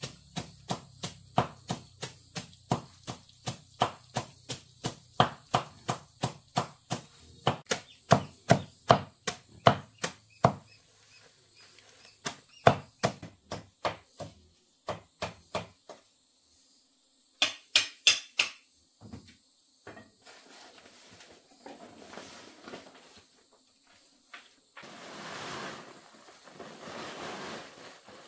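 A rapid run of sharp, evenly spaced strikes, about three a second, like chopping or hammering. It slows after about ten seconds and stops around the middle. A few scattered knocks follow, then a soft rustling near the end.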